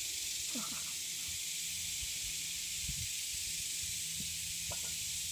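A steady, even high-pitched hiss with a faint low hum beneath it and no distinct events.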